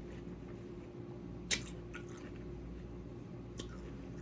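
Chewing and biting watermelon: a few short wet mouth sounds, the sharpest about a second and a half in, over a faint steady hum.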